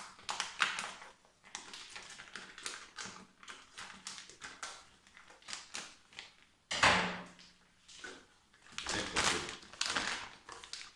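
Clear vacuum-sealed plastic bag around a PLA filament spool crinkling and crackling as it is handled and opened, in irregular bursts of sharp crackles, the loudest about seven seconds in.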